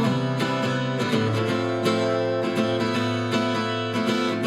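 Acoustic guitar strumming chords in a steady rhythm, the instrumental accompaniment of a live song while the voice rests.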